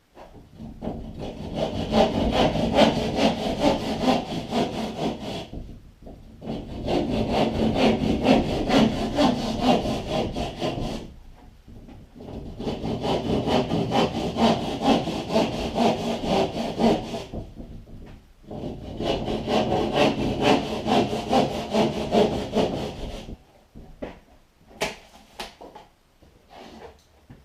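Drywall being cut by hand with a hand drywall saw to open holes for electrical outlets: four bouts of rapid sawing strokes, each about five seconds long with short pauses between, followed near the end by a few light knocks.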